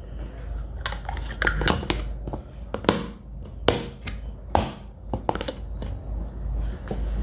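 Plastic cups clicking and knocking as they are picked up, stacked and set down on a tabletop: about a dozen sharp, uneven taps.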